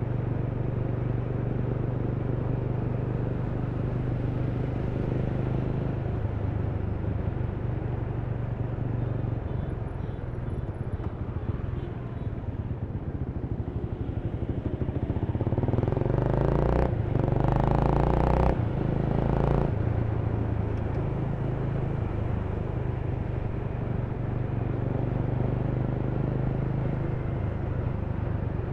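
Honda Rebel 300's single-cylinder engine running at low road speed. About fifteen seconds in it revs up and gets louder for a few seconds, the note breaking twice, then settles back to a steady run.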